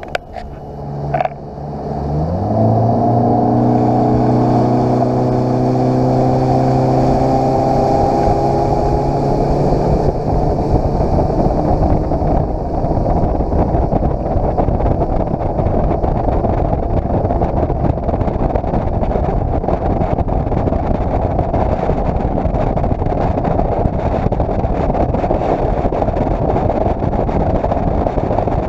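Bass boat's outboard motor throttling up about two seconds in, its pitch climbing and then holding steady as the boat gets under way. From about ten seconds in, a steady rush of wind on the microphone and water under the hull covers the engine.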